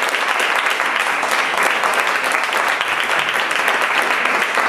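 Audience applauding steadily, a dense, even sound of many hands clapping.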